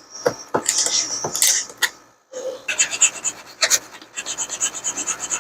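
Hand file rasping on a plastic GoTek drive case: a few scattered scrapes and clicks, then a steady run of quick, even filing strokes from about two and a half seconds in.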